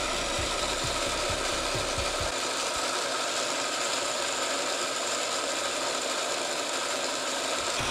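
Motor-driven 3D-printed Nipkow disc mechanism of a homemade mechanical TV spinning: a steady mechanical whir with a dense rattle of many high tones, and faint low knocks in the first two seconds.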